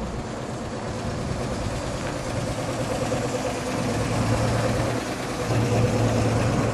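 1954 Chevrolet 3100 half-ton pickup's inline six-cylinder engine running as the truck drives past at low speed, getting louder as it comes closer.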